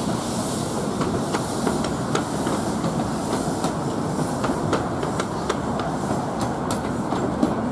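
Coaches of a 15-inch-gauge miniature train rolling past at low speed: a steady rumble with the wheels clicking over the rail joints, the clicks coming more often toward the end.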